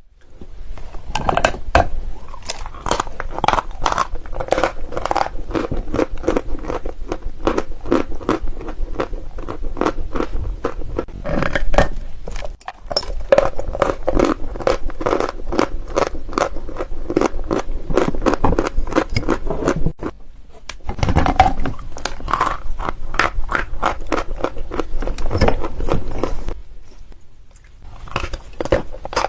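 Crunching and chewing of creamy white eating chalk: a dense run of crisp cracks and crackles, pausing briefly about 12 s in, again at about 20 s, and once more near the end.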